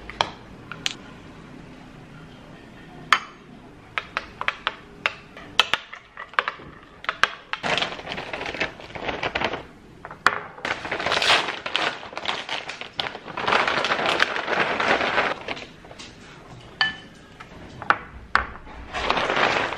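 Clinks and knocks of dishes and glassware, scattered irregularly, with several stretches of rushing noise a second or two long.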